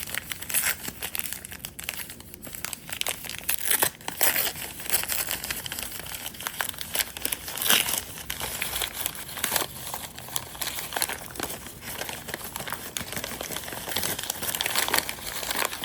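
Taped packing wrap around a crystal being pulled apart and crumpled by hand: a continuous, irregular crinkling and crackling with sharp tearing strokes throughout.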